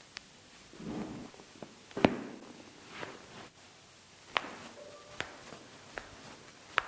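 Chiropractic manipulation of the back: about half a dozen sharp cracks and clicks, the loudest, with a dull thump, about two seconds in, over soft rustling of clothing and the treatment table.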